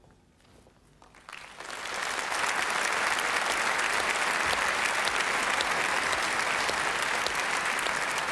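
A large audience applauding. After a second of near silence the clapping swells quickly and then holds steady and dense.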